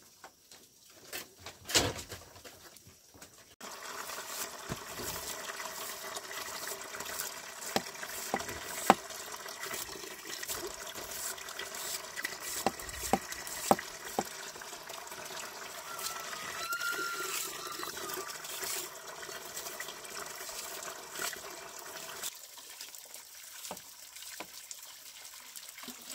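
Water running or trickling steadily, with sharp knocks now and then.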